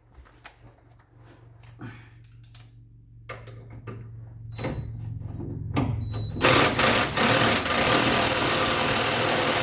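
Impact gun hammering on a steering rack clamp bolt to undo it, a loud continuous rattle that starts about six and a half seconds in. Before it come a few seconds of quiet clicks and short knocks, with a steady low hum underneath.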